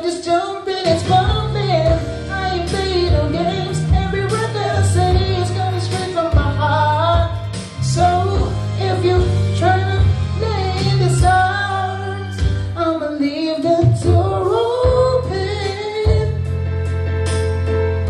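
A man singing karaoke into a handheld microphone over a music backing track with a steady bass line.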